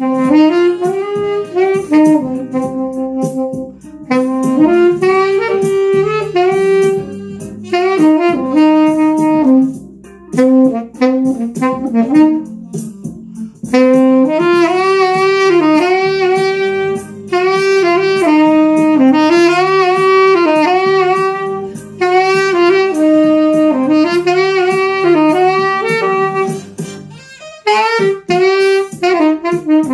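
Mendini by Cecilio MTS-N+92D nickel-plated B-flat tenor saxophone played live: a melody in phrases, with short breaks between them.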